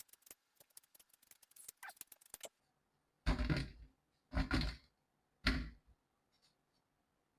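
A kitchen knife working on raw yam. Rapid light clicks come first, then three heavy cuts about a second apart that strike through to the chopping board.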